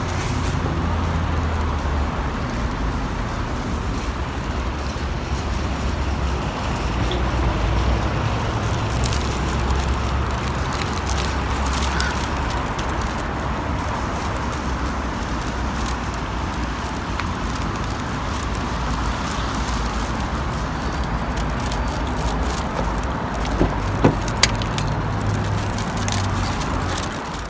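Parking-lot car noise: engines running and cars passing with a steady low rumble, and two sharp clicks near the end.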